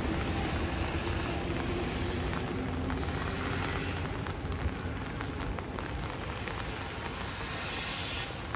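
Steady low rumble of a passing vehicle, slowly fading, over the hiss of heavy rain with scattered drops ticking.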